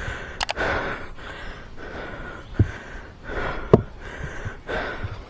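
A person breathing close to the microphone, a string of breaths with short gaps between them, with a few sharp clicks.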